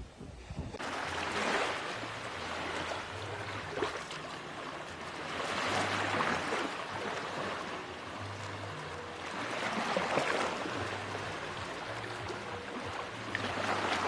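Gentle sea waves washing onto a beach, each wave swelling and fading about every four seconds.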